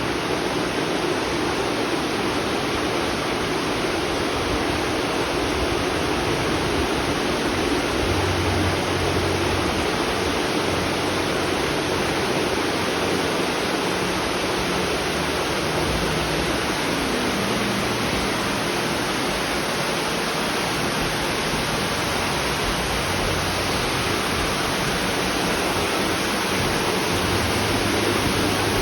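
Spring water rushing and splashing in a steady, unbroken flow.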